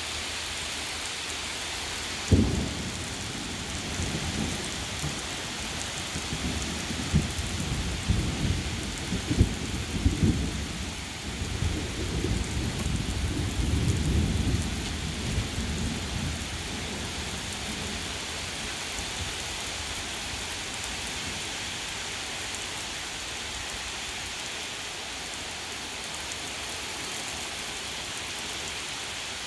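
Heavy rain falling steadily on pavement and grass. About two seconds in comes a sharp clap of thunder, then rolling thunder rumbles on for about twelve seconds and fades, leaving the rain alone.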